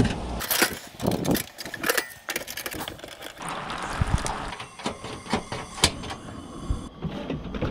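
Clatter and knocks of camping gear being handled: a two-burner camp stove's lid swung open and a kettle set on its metal grate, with a steady hiss from about halfway through.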